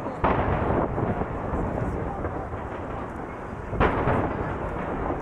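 Aerial fireworks shells bursting: two loud booms about three and a half seconds apart, with continuous rumbling and echo from the barrage between them.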